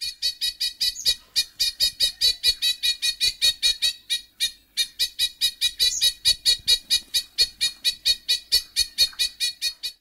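New Zealand bellbird (korimako) giving its harsh, disjointed yeng-like alarm call: short notes repeated rapidly, about five a second, with a brief break about four and a half seconds in. This is the call it uses when alarmed, to warn of a predator, or when fighting over food.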